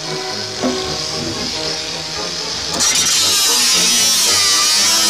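Makita 18-volt cordless angle grinder running. About three seconds in, its disc bites into galvanised corrugated steel roofing sheet, and the cutting sound becomes much louder and harsher. Background music plays underneath.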